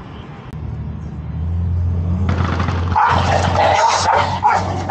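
Dogs growling in a scuffle, loud and rough from about two seconds in, over a steady low hum.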